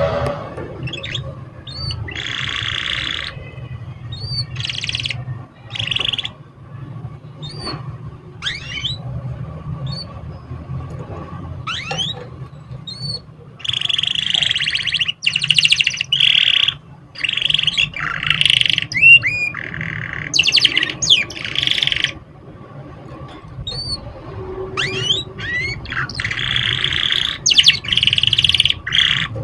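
Domestic canary singing: bursts of fast trills and rolls broken by short rising whistled notes, with a low steady hum underneath.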